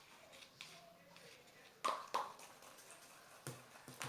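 Quiet handling of slime-making utensils and containers, with two sharp taps close together a little under two seconds in.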